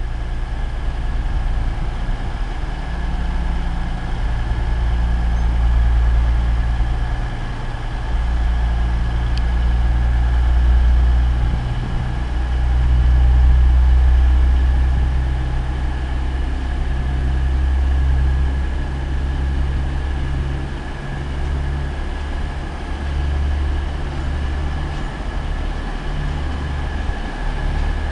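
Diesel passenger train's engines running at a platform: a steady, deep rumble that swells and eases over several seconds, with a faint high steady whine over it.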